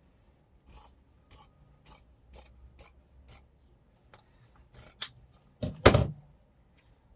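Kitchen things being shuffled and fitted into a drawer: short scraping and rubbing strokes about twice a second, then a sharp click and a louder clunk near the end.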